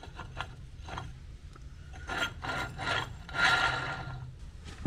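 Metal scraping and rubbing in a series of short strokes, with one longer scrape about three and a half seconds in, as the splined shaft is worked into the tractor's front hub to line up the splines.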